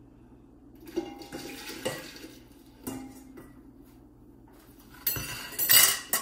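Stainless steel bowls and spoons being handled on a kitchen counter: a few light knocks in the first seconds, then louder clattering and clinking near the end.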